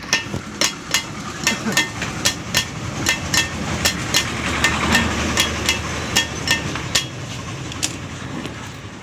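A hammer striking metal in a quick, even series of ringing blows, a little under three a second, which stop about eight seconds in.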